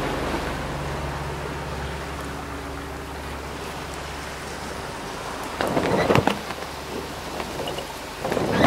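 Wash of water along the catamaran's hulls with a low steady hum, broken by a slack sail luffing in calm wind: sharp flapping bursts of sailcloth about two-thirds of the way through and again near the end.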